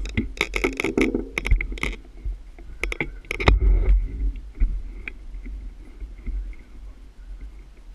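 A quick run of sharp clicks, knocks and scrapes during the first four seconds, over a steady low rumble, then quieter.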